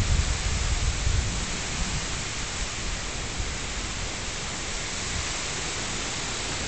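Steady downpour of rain at the start of a severe storm, an even hiss, with wind buffeting the microphone in the first second or two.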